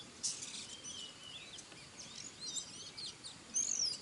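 Small birds chirping and twittering in short high notes and quick pitch sweeps, with a louder falling call near the end and a brief rustling burst just after the start.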